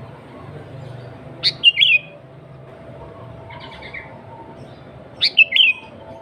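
Sooty-headed bulbul (kutilang) singing two loud, short phrases of a few quick notes each, about four seconds apart, with a soft buzzy call between them.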